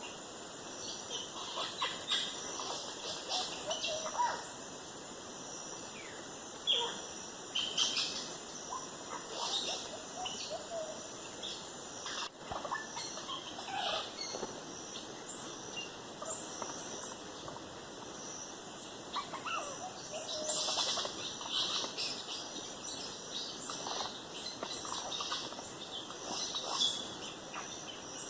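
Wild birds chirping and calling with many short, scattered calls, over a steady high-pitched whine that stops about twelve seconds in.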